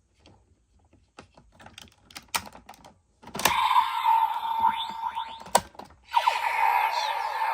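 Plastic toy parts clicking as they are handled. A sharp click then sets off electronic sound effects from a toy transformation belt's small speaker, with gliding tones over a steady beep. A second click about two seconds later sets off another burst of sound effects near the end.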